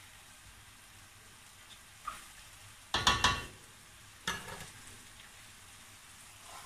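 Chicken, mushrooms and sun-dried tomatoes sizzling faintly in a stainless steel frying pan, with a spatula scraping and clattering against the pan, loudest about three seconds in and again just after four seconds.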